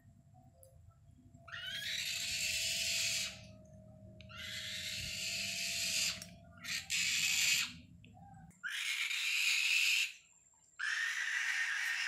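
A captive hawk screeching: about five long, harsh, rasping calls, each lasting one to two seconds, with short gaps between them.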